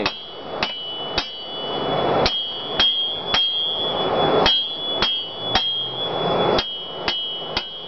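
A hand hammer strikes hot mild steel bar on an anvil, drawing the end out to a point for a sword tang. There are about a dozen blows at roughly two a second, each with a high ring from the anvil, and two short pauses.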